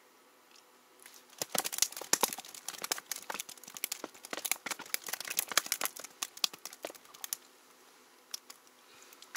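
Crinkling, crackling rustle of something being handled, a dense run of sharp crackles starting about one and a half seconds in and stopping a little past halfway, then only faint ticks.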